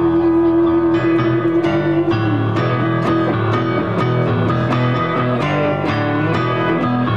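Live rock band playing an instrumental passage on electric guitar and keyboard over a steady beat. A long held note gives way to a moving line about two seconds in.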